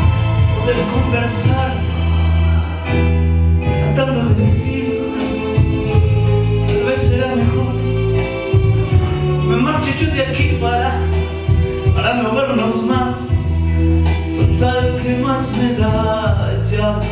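Karaoke backing track playing the instrumental interlude of a slow Spanish-language ballad, with a steady bass line and long held melody notes.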